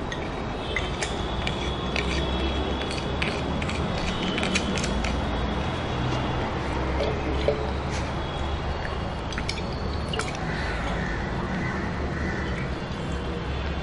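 Salt being stirred into water in a glass flask: a run of light glass clinks and brief ringing tones over a steady low hum.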